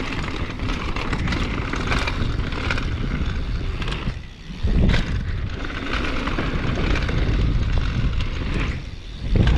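Downhill mountain bike rolling fast on a dirt trail: steady tyre and frame rattle with heavy wind rumble on the camera mic. Twice, about four and nine seconds in, it goes briefly quieter and then a heavy thump follows, as the bike lands from jumps.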